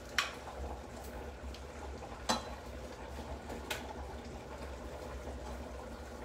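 Tomato sauce simmering steadily in a pan, with three sharp clicks of kitchen tongs as cuttlefish pieces are lifted into it.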